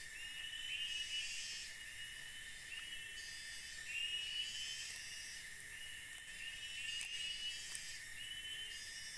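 Forest insects chirping: trains of short rising chirps come again every second or two over a high, steady insect drone. One light click sounds about seven seconds in.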